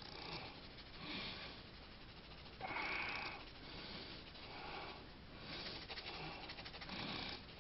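Hands rubbing and handling a steel pistol frame, making soft, irregular scrubbing strokes, the loudest about three seconds in.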